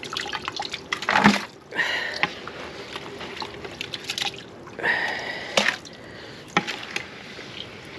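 Wet animal feed being scooped and poured into a bucket, with several separate splashing, sloshing pours and scrapes.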